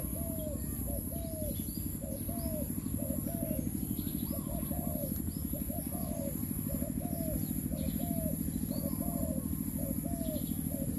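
Dove cooing in a steady, unbroken run of short arched notes, about two a second, with faint chirps of small birds higher up.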